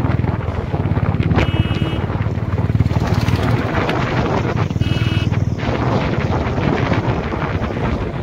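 Small vehicle engine running steadily during a ride, with some wind noise on the microphone. Two brief high beeps sound about a second and a half in and again about five seconds in.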